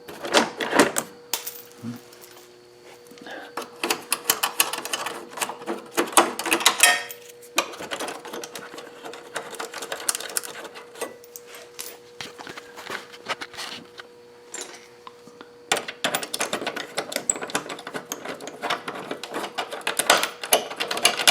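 Ratchet wrench clicking in several runs of rapid clicks as the headlight mounting bolts are backed out, with pauses between runs and a steady faint hum beneath.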